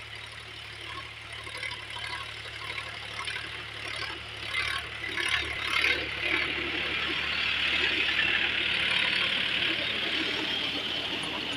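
Sonalika DI 42 RX tractor's diesel engine running under load, pulling a Shaktiman rotavator that churns dry soil. The noise grows louder about six seconds in and stays loud.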